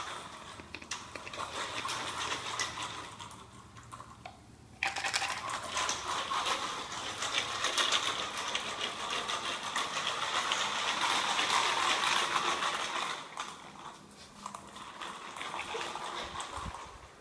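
Treats rattling inside a bottle being shaken: a dense, fast clatter that eases off around three seconds in, starts again sharply about five seconds in, and goes on quieter near the end. The shaking is the rabbit's call to come for treats.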